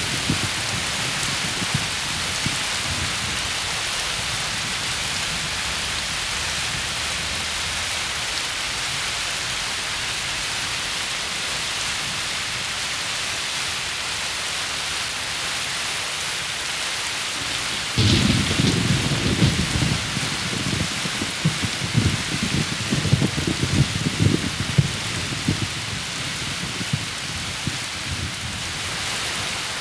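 Steady heavy rain hissing throughout. About two-thirds of the way in a sudden thunderclap breaks, followed by low rolling thunder rumbling irregularly for several seconds before easing back to the rain alone.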